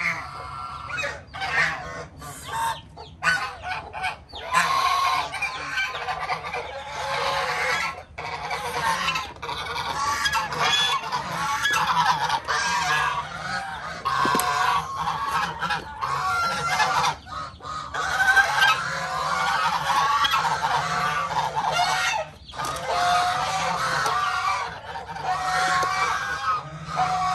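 A flock of domestic geese honking, many calls overlapping almost without a break, with a few short pauses.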